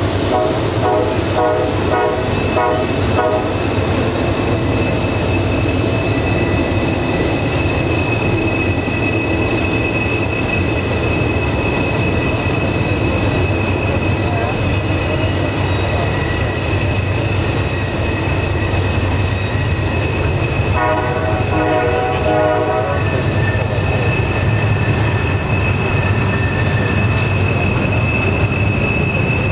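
Loaded trash-container freight cars rolling past on a tight curve: a steady low rumble of wheels on rail, with a thin, steady, high wheel-flange squeal through most of it. A fluttering, pulsing squeal comes in at the start and again about two-thirds of the way through.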